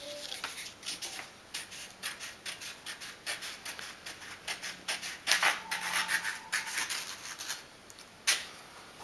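Scissors snipping through a folded sheet of paper in a run of short, irregular cuts, trimming it down to a square.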